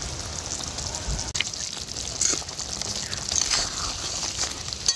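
Fish curry gravy bubbling and spattering on the boil in a metal wok, a steady fine crackle. Near the end a spatula stirs through it with a few light scrapes.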